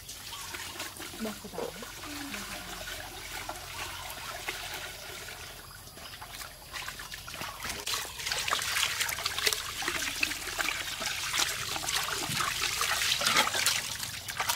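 Water poured from a plastic jug into a large steel basin, then splashing and sloshing as hands scrub a raw rack of goat ribs in the water, growing louder and splashier about halfway through.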